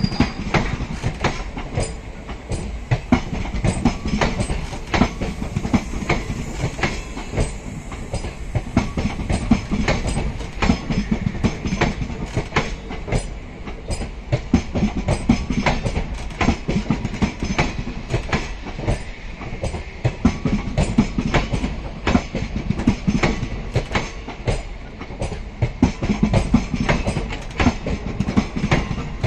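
Indian Railways passenger coaches rolling past close by, their wheels clattering over the rail joints in a continuous, irregular clickety-clack over a low rumble.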